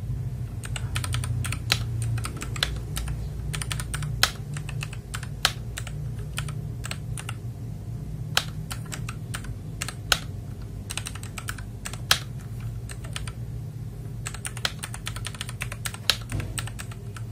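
Typing on a GamaKay LK67 mechanical keyboard: a quick, irregular run of key clacks as a sentence is typed, with a few louder strokes among them.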